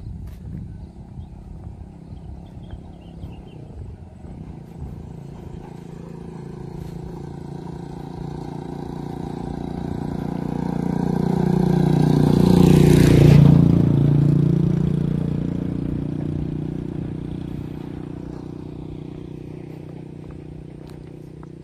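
A small motor vehicle, apparently a three-wheeled motor cart, approaches along the road, passes close by about 13 seconds in with its engine pitch dropping as it goes, then fades away.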